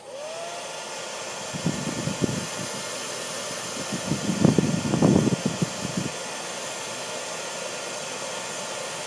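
Hand-held hair dryer switched on with a click, its motor whine rising as it spins up, then blowing steadily. Uneven low rumbles come and go between about one and a half and six seconds in, loudest around four to five seconds.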